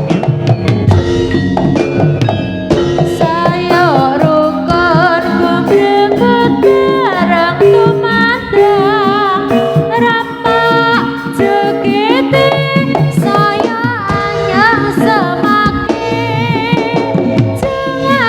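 Javanese jaranan sentherewe music: kendang hand drums and gamelan percussion under a high, wavering melody line that runs throughout.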